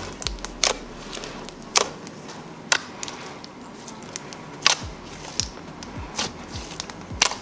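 Slime, a mix of jelly slime and basic slime, being squeezed and pulled by hand, giving sharp pops and clicks at irregular intervals, about one a second.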